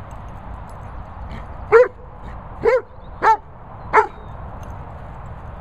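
A dog barks four times, short sharp barks about two-thirds of a second apart, starting a little under two seconds in. These are play barks while two dogs face off in rough play.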